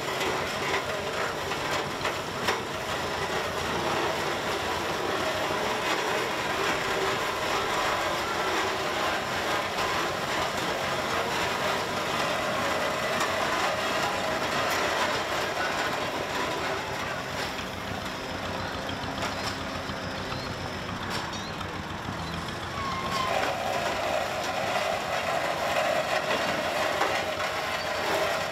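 Steam traction engine running as it is driven slowly along: a steady mechanical din with faint voices behind it.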